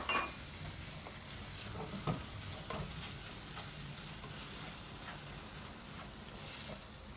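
Raw rice, toasted angel-hair pasta and onion sizzling as they fry in butter and oil in a nonstick pan, stirred with a silicone spatula that scrapes and taps through the mixture now and then.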